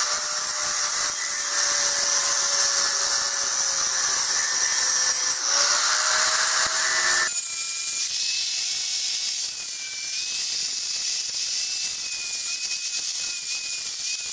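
Angle grinder grinding a point onto the blunt end of a steel stake, a steady whine over a hiss of grit on steel. About seven seconds in the sound changes suddenly to a quieter, higher-pitched whine.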